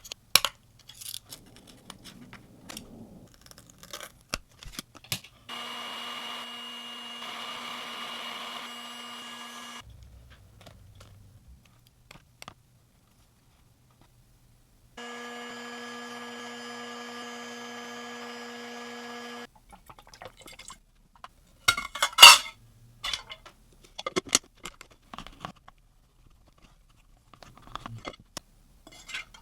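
Phone repair work: small clicks and taps of tools and parts on a smartphone, with two steady electric hums of about four seconds each from a small bench machine, and a loud clatter of knocks about two-thirds of the way in.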